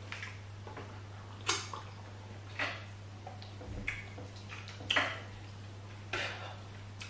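Short wet squelches and smacks, about one a second, from fingers working soft banku and okra stew on a plate. A steady low hum runs underneath.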